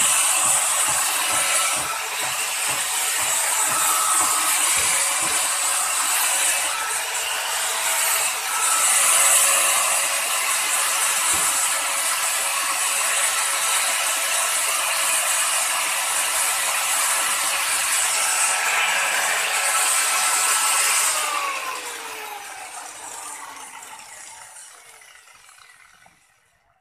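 Angle grinder running, its disc grinding the edge of a bench planer's cutter blade, with a high hiss that grows louder in stretches. About three-quarters of the way through, the grinder is switched off and its whine falls in pitch as it spins down and fades out.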